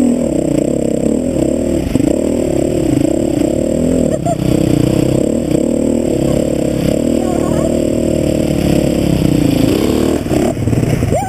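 Dirt bike engine running hard on a rough trail, revs rising and falling continuously with throttle changes, with some clatter from the bike over the bumps.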